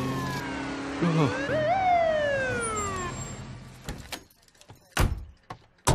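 Police car siren giving a short whoop that rises then falls away, over a steady engine hum, fading out about three or four seconds in. A couple of sharp thumps follow near the end.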